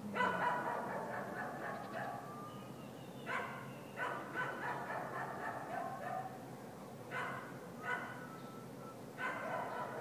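Repeated high-pitched animal calls in short groups, each starting sharply, a few seconds apart.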